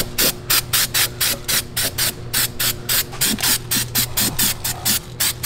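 Aerosol can of copper weld-through primer spraying onto a car's underbody in rapid short hissing bursts, about four or five a second, over a steady low hum.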